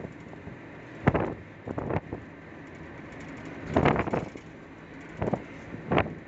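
Steady road and engine noise inside a moving vehicle's cabin at highway speed, broken by several brief, louder noises a second or two apart.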